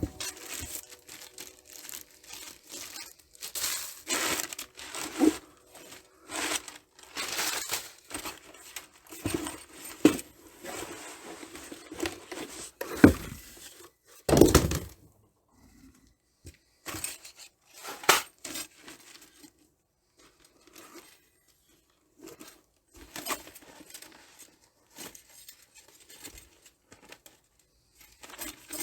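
Packaging being torn open and crinkled during an unboxing, with light metallic clinks from the thin titanium stove parts, and a couple of louder knocks about halfway through.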